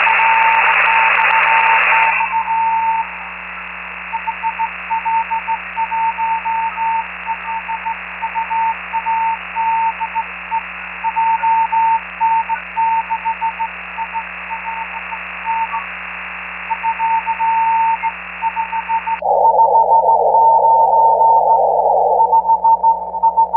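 Morse code (CW) from an amateur-radio transceiver tuned to the 40 m band: a single tone keyed on and off in irregular dots and dashes over steady band-noise hiss and a low hum. A louder rush of noise sits under the tone at the start and again for a few seconds near the end.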